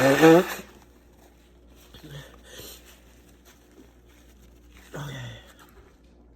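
A woman's loud wordless vocal outburst, her voice rising in pitch, at the very start, then quiet with faint small sounds, and a shorter, lower vocal sound falling in pitch about five seconds in. These are her reactions to strong menthol steam she is inhaling while congested.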